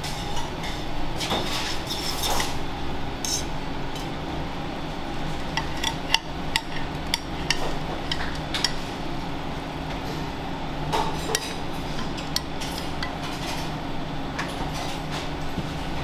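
Metal utensils and a metal pan clinking and knocking against each other and a ceramic bowl while sauced pasta is served, in scattered taps over a steady low hum.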